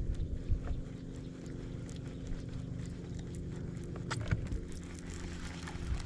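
A boat motor running with a steady hum, with scattered clicks and knocks from handling on the boat, one sharper knock about four seconds in.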